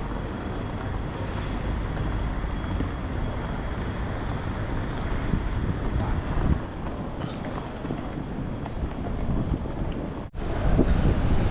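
City street ambience: steady traffic noise. About ten seconds in it cuts out for an instant and comes back louder and more uneven.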